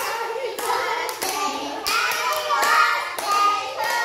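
Several voices singing, with hands clapping along in sharp claps.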